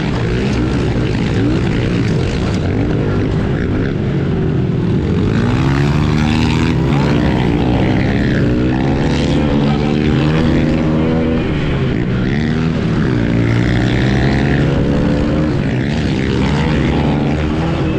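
Pit bike engine revving hard, its pitch rising and falling again and again with the throttle as the bike races around a dirt track, heard close up from on the bike.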